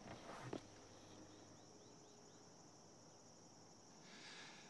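Near-silent outdoor ambience: a steady high cricket trill, with a run of small faint chirps about a second in. A brief soft sound comes just after the start, and a soft hiss comes near the end.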